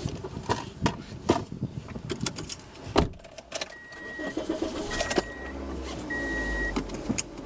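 Steam locomotive letting off steam: a hiss and a low rumble build from about halfway through, among scattered clicks and knocks. Three short, even beeps sound about a second apart in the middle.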